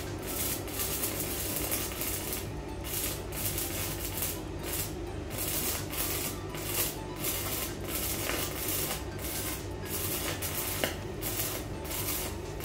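Stick welding with a 2.6 mm electrode at about 100 amps on an EENOUR MIG120L 100 V welder: a steady crackling, sizzling arc. Every second or so it cuts out briefly and restrikes, as the bead goes down in short stretches with the arc broken between them.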